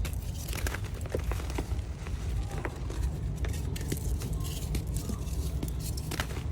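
Reformed gym chalk crunching and crumbling as it is crushed, a dense run of small, sharp, irregular crackles over a steady low rumble.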